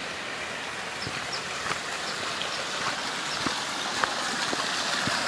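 Canyon stream running steadily over rocks, with a few small clicks and splashes, growing a little louder toward the end.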